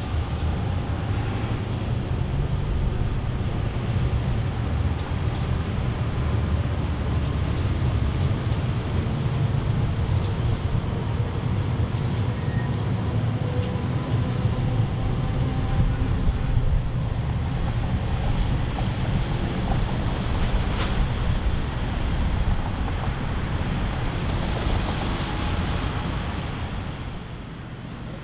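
Steady city street traffic mixed with the low running of a suburban electric train crossing the railway viaduct overhead, the level dropping near the end.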